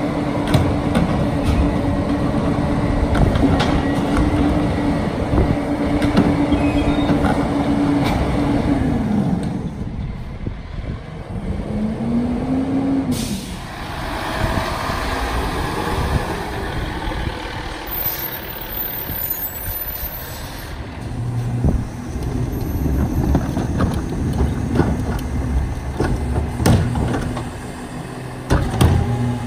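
Freightliner M2 Pak-Mor rear-load garbage truck at work: the diesel engine holds a steady high idle for about eight seconds, then winds down. The truck pulls away and passes close by with a hiss of air brakes, then idles while carts are tipped, with several bangs near the end.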